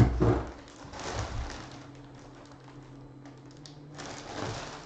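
Clear plastic bag crinkling as the bagged jersey inside is handled, in a few bursts: the loudest right at the start, another about a second in, and another near the end.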